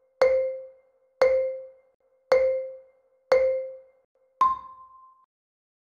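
Countdown timer sound effect: five short struck tones, one a second, each fading quickly, the fifth higher in pitch and ringing a little longer, marking the last second of the count.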